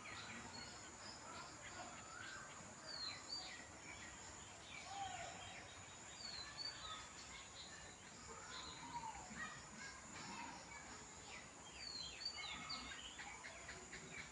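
Faint outdoor bird calls: many short chirps and quick falling notes from several birds, scattered throughout, over a steady high-pitched hum.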